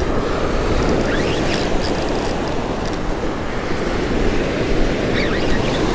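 Surf breaking steadily along the beach, with wind rumbling on the microphone and a few faint short squeaks about a second in and again near the end.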